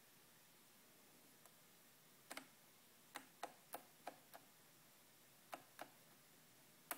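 Short plastic clicks from the CB radio's channel controls being stepped, about nine clicks, some in quick pairs, over near silence.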